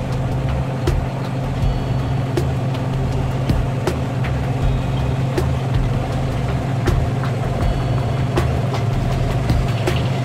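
Heavy diesel engine running steadily under load, heard from inside a vehicle cab working beside a harvesting combine. Irregular light clicks come about once a second.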